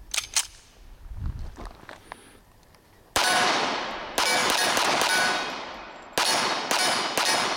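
Commander-size 1911 pistol firing .45 ACP rounds. Faint metallic handling clicks come first, then five shots starting about three seconds in: two a second apart, then three in quicker succession, each trailing off in echo.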